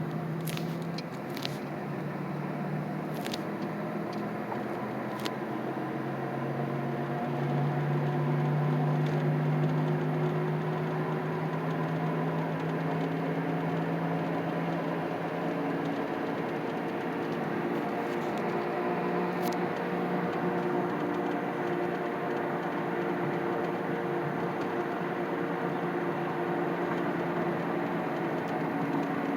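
2007 Chevy Impala driving, heard from inside the cabin: a steady engine and road hum whose pitch shifts about halfway through, with a few sharp clicks in the first few seconds and one more later.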